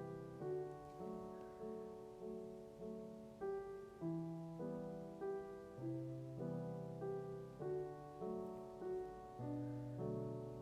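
Soft background piano music: gentle, slow notes struck one after another, each swelling and fading.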